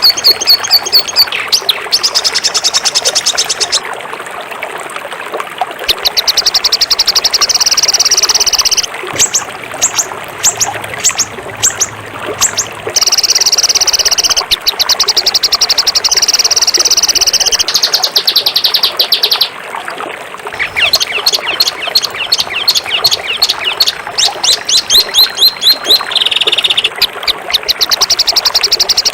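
Songbird singing high-pitched, fast rapid-fire trills in runs of one to four seconds with short breaks between them: the harsh 'tembakan' song that bird keepers use as masteran for training young birds.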